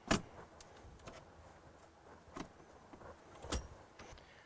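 Scattered plastic clicks and knocks from the white telephone handset of the ZIL-41047's special-communications set being handled in its centre-console cradle. The sharpest click comes just after the start, and a duller knock comes about three and a half seconds in.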